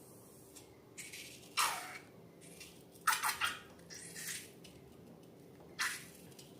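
Several short, wet, squishy noises of slime-making: ingredients squeezed out and slime being handled and mixed.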